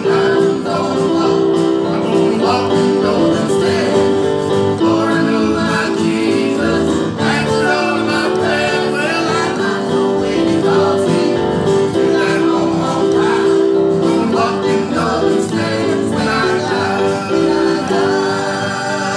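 Gospel tune played on a digital grand piano, continuous chords and melody notes without a break.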